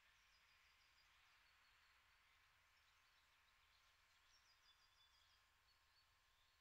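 Near silence: faint outdoor ambience with a distant songbird singing twice, each a quick run of high notes stepping downward.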